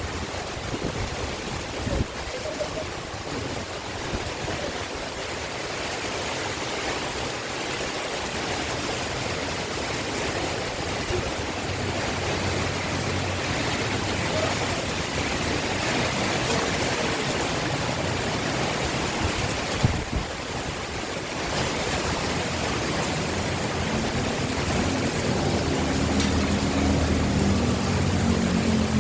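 Heavy rain and gusting wind making a steady rushing noise that slowly grows louder, with a couple of sharp knocks. A low droning hum builds in the last few seconds.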